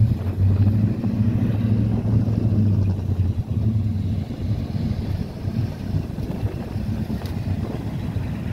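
Classic cars' engines running as they drive slowly past, a deep steady engine note for the first three seconds or so that then fades into a rougher low rumble as another car pulls out and goes by.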